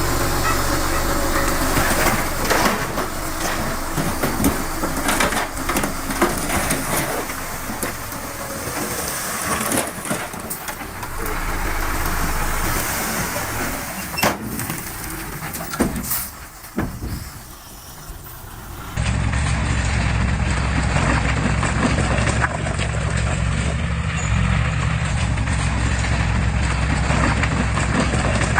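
Heavy earthmoving machinery engines running, with knocks and clatter in the first part. About two-thirds of the way through it changes abruptly to a steady low engine drone.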